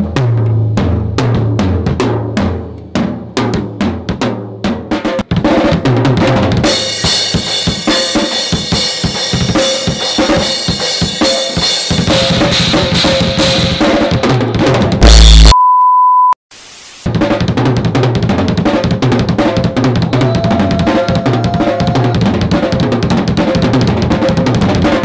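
SJC drum kit played hard: separate kick, snare and tom strokes at first, then a fast groove under a wash of crash and ride cymbals. About halfway through, the playing breaks off with a loud burst and a short steady beep, then a moment of quiet, before the drumming starts again.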